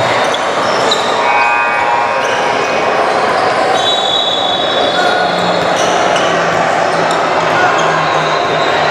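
Basketball game sounds on a gym court: the ball bouncing on the hardwood amid a steady wash of crowd and player voices, with short high squeaks scattered through it.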